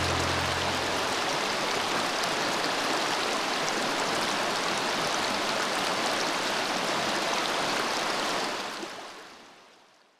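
River water rushing steadily, fading out near the end.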